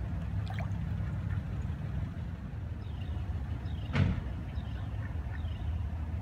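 Delivery truck engine idling steadily, with a single sharp knock about four seconds in.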